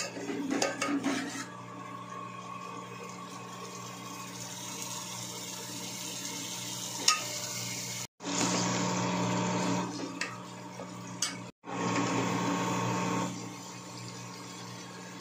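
Metal spoon clinking and scraping against an aluminium pot as a thick masala is stirred, over a steady sizzle of frying. The clinks come in a cluster at the start, with one sharp clink about seven seconds in.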